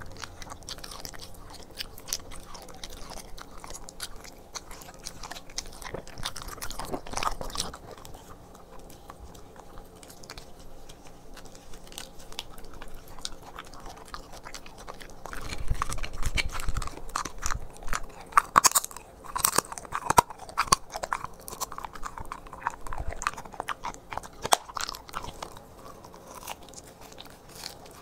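Corgi biting and chewing pieces of raw meat and organ treats taken from a hand, with wet crunching and lip-smacking. The crunching comes as many short bites, loudest and densest in a stretch through the middle.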